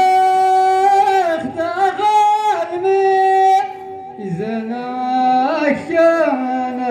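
Male voice chanting in song with long held notes that waver and glide between pitches, the melody dropping lower about four seconds in.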